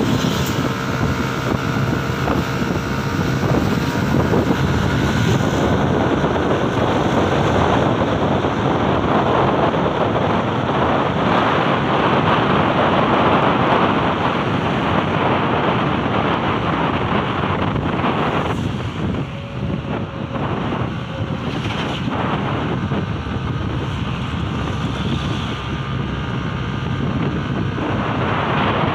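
Wind buffeting the microphone over the engine and road noise of a Yamaha Aerox scooter, bored out to 190 cc, being ridden along a road.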